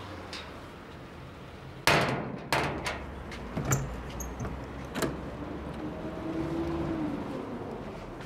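A sharp bang about two seconds in, followed by several lighter knocks and clatters of hard objects over the next three seconds.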